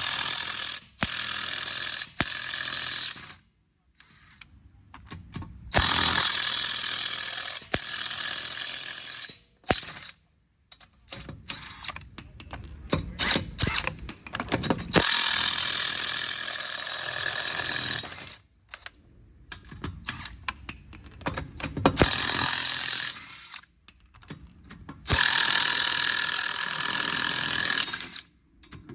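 Impact wrench running in repeated bursts of a few seconds each, spinning the lug nuts off a rear wheel, with quieter gaps of clicks and handling between them.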